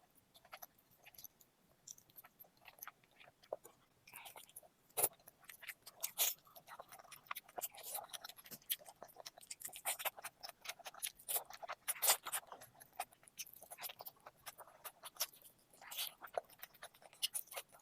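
Close-up eating sounds: a person chewing food, with many short, irregular wet clicks and smacks that get busier and louder about four seconds in.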